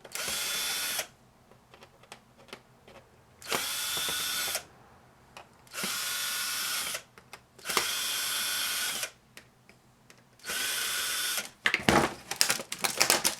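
Cordless drill/driver run in five short bursts of about a second each, backing screws out of a salvaged laminator's parts. A clatter of loose pieces follows near the end.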